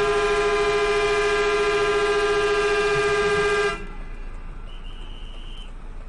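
Vehicle horn held in one long steady blast that cuts off sharply a little under four seconds in.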